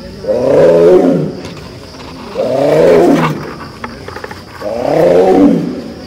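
Tiger roaring: three long, deep calls about two seconds apart, each lasting about a second.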